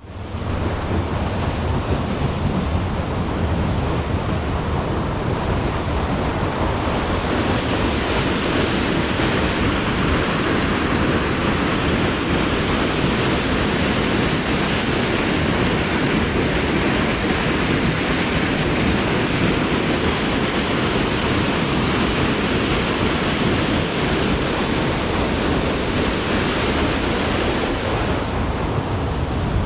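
Steady rushing of a waterfall and the creek below, mixed with wind rumbling on the microphone. The hiss grows brighter from about eight seconds in and eases again near the end.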